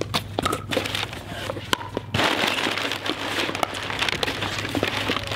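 Brown kraft packing paper crinkling and rustling as it is pulled out of a cardboard shipping box, starting about two seconds in. A few sharp clicks come before it.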